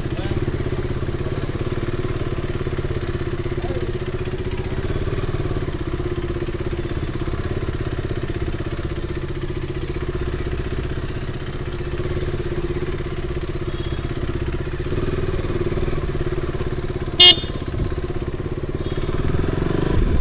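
Sport motorcycle's engine running steadily at low speed, with one brief sharp sound near the end.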